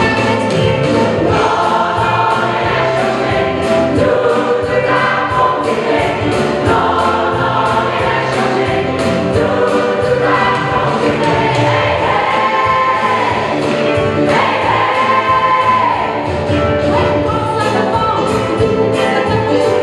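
Large mixed-voice pop choir singing to a band accompaniment with a steady beat.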